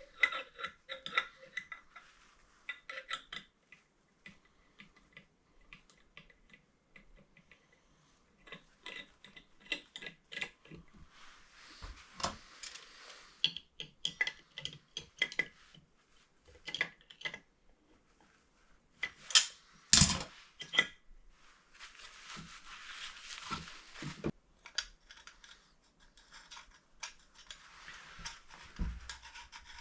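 Hand tools and hard parts being handled during plumbing work: a run of light clinks and taps, a couple of sharp knocks about two-thirds of the way through, and two stretches of rubbing or scraping.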